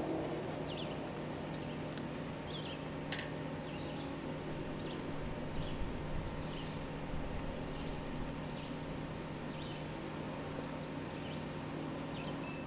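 Outdoor ambience after the siren falls silent: birds chirping in short, scattered calls over a steady low hum. There is a single sharp click about three seconds in.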